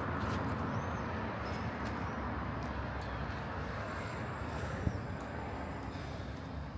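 Outdoor urban ambience: a steady hum of distant traffic, with a few short bird chirps in the first couple of seconds and a single sharp click about five seconds in.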